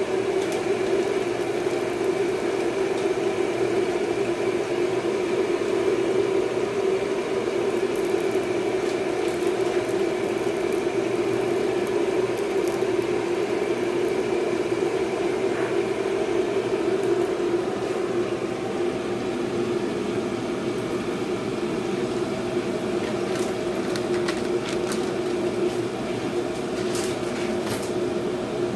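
Steady mechanical whir of a running motor, with a constant low hum and no change in pitch; a few faint clicks near the end.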